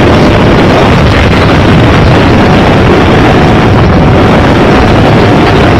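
Loud, continuous, overloaded rumbling noise, with a faint steady siren tone underneath.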